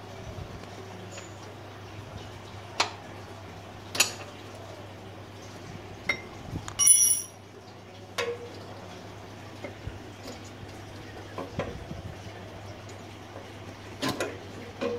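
Scattered metallic clicks and clinks of small metal parts and tools being handled, with one louder ringing clink about seven seconds in, over a steady low hum.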